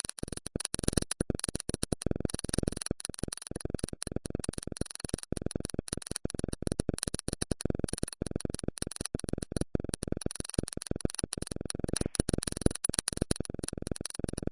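Electric energy sound effect: a dense, irregular crackling and sputtering of electrical discharge that goes on without letting up.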